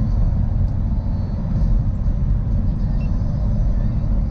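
Semi-truck cab at highway speed: a steady low drone of the engine and tyre and road noise.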